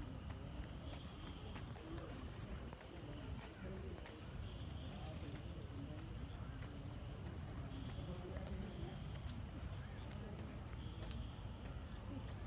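Crickets chirping in a steady high-pitched chorus that pulses and breaks off now and then, with a short, faster trill about a second in, over a low rumble.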